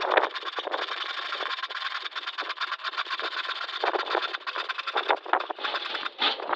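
Electric scroll saw running at high speed, its blade stroking up and down in a fast, even rattle, with a few louder surges.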